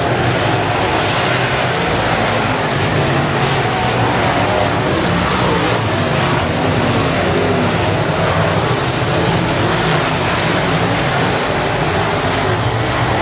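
Several dirt semi late model race cars' V8 engines running hard at racing speed, a loud, steady mix of engines with no let-up.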